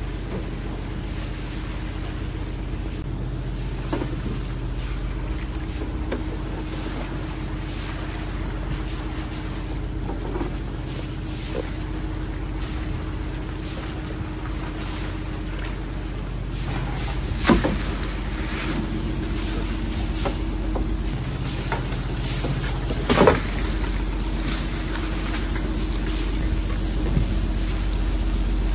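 Engine on a floating lift-net fishing boat running steadily with a low, even hum. Two sharp knocks sound in the second half, the later one the louder.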